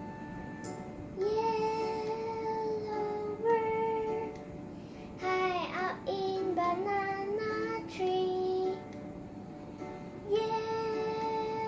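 Music: a child's voice singing a slow melody without clear words, in long held notes with short pauses between phrases, over soft accompaniment.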